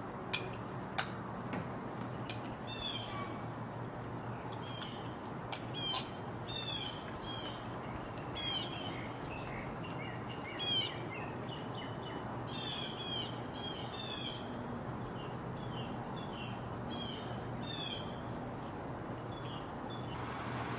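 Swallow-tailed kites calling: a long series of short, high whistled notes, repeated on and off through most of the stretch. A few sharp clicks stand out near the start, and a steady low hum lies underneath.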